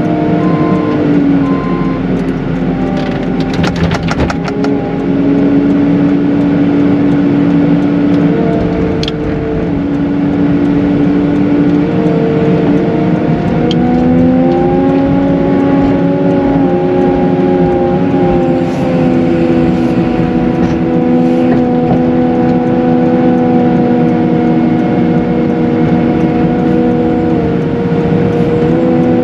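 Cat 906M compact wheel loader's diesel engine and drive running steadily, the pitch stepping up and down several times as the throttle changes. A short clatter comes about three to four seconds in.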